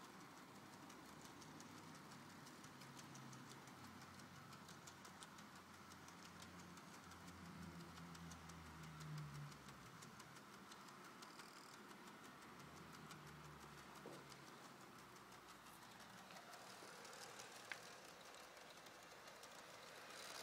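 Roco ICN model train running around a track helix: faint, quick clicking of its wheels over the rails, with a low motor hum that comes and goes.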